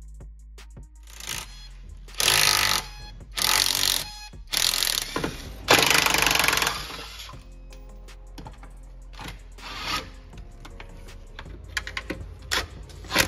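Makita cordless impact wrench hammering in four bursts of about a second each, then a few short blips near the end, undoing the bolts that hold a Tesla Model S battery pack to the car's underside.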